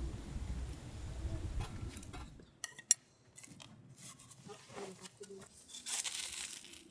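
Low wind rumble for the first two seconds or so, then a quieter stretch of light clicks and clinks of camp kitchenware, with a rustling hiss near the end.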